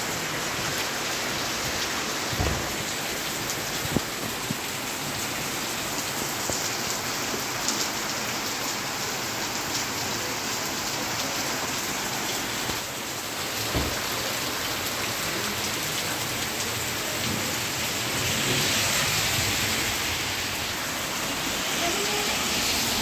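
Heavy rain falling steadily, splashing on a wet road and pavement, with a few dull knocks.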